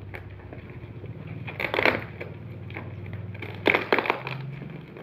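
Plastic parcel wrapping crinkling and crackling as it is pulled and picked at by hand, with two louder rips, one just under two seconds in and one near four seconds.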